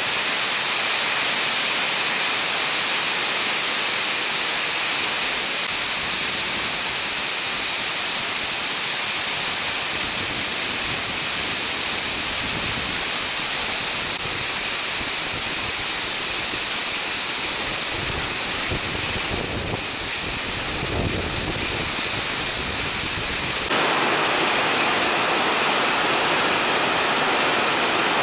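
Heavy hail falling hard, a dense steady hiss of ice stones pelting the ground, with wind gusts buffeting the microphone about two-thirds of the way through. The sound changes abruptly a few seconds before the end.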